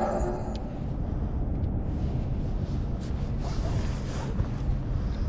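Steady low wind noise buffeting the microphone, after the tail of electronic intro music fades out in the first half-second.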